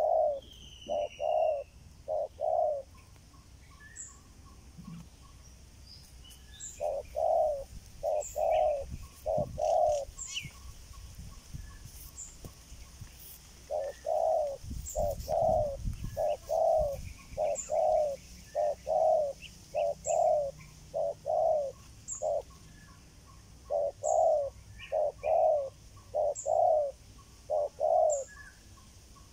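Spotted doves cooing: low, repeated coo notes in bouts of three to a dozen or so, with pauses of a few seconds between bouts, the longest bout near the middle. Faint high chirps sound throughout.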